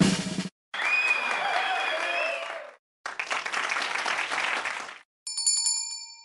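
Closing sound effects: the tail of a drum roll, then two bursts of crowd applause and cheering, and a short bright bell chime near the end that rings out and fades.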